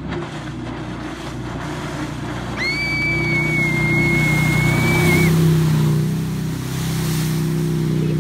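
Riddle Marine RMX 18 jet boat running at speed, its engine growing louder as it approaches and passes close by, over the rush of its jet spray and wake. A high steady tone sounds for nearly three seconds in the middle.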